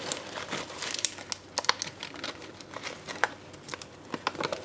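Paper and thin plastic packaging crinkling as a coin in a clear plastic capsule is unwrapped by gloved hands, with irregular sharp crackles throughout.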